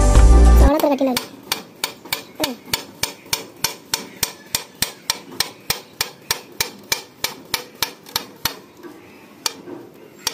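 Kitchen knife slicing a roll of kinetic sand into discs, the blade tapping the tabletop with each cut in a steady rhythm of about three a second. The taps thin out to a couple of last cuts near the end. Background music cuts off just under a second in.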